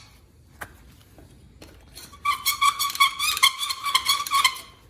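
Reamer scraping the inside edge of a freshly cut copper pipe, deburring it: a squeaky, whistle-like squeal in short repeated strokes from about two seconds in until near the end, after a couple of light clicks.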